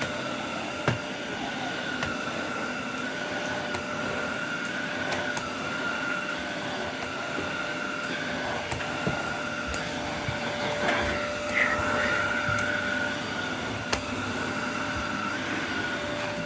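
Bush multi-cyclonic bagless cylinder vacuum cleaner running steadily with a high-pitched motor whine, with a few light knocks as it is worked.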